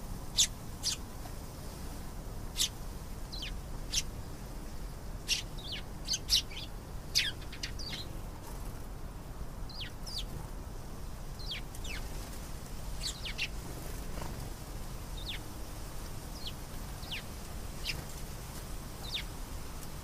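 Domestic canary giving short, sharp chirps that slide downward, singly or in quick pairs. They come thick and fast for the first eight seconds and more sparsely after that, over a steady low hum.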